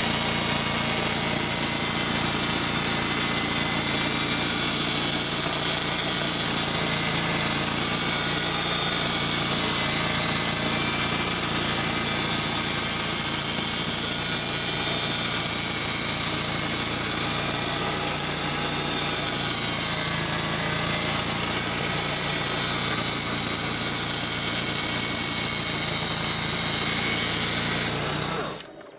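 Portable sawmill running and sawing a pine log: a loud, steady engine-and-blade noise that cuts off suddenly near the end.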